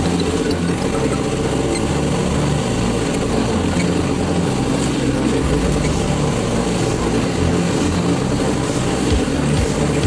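Backhoe loader's diesel engine running steadily, heard from the operator's seat.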